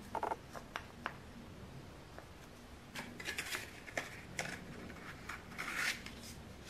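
Small wooden cartridge box being handled: a few light clicks and taps in the first second, then dry wood scraping and rubbing from about three seconds in as the cartridge-filled block slides into its wooden sleeve.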